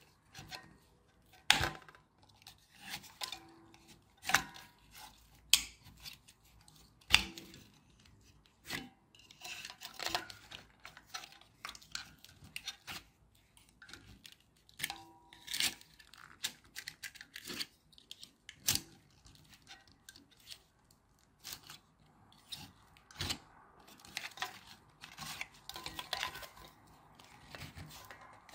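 A small screwdriver prying and scraping at the plastic casing of a 4R25 6V lantern battery, with scattered sharp clicks and cracks of plastic between softer scraping, as corroded cells are worked loose.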